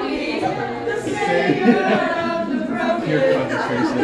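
Several voices singing together at once, unaccompanied.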